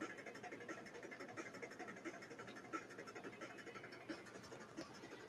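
Faint, quick scratching strokes of a black ink pen on paper, filling in a small dark area of a drawing.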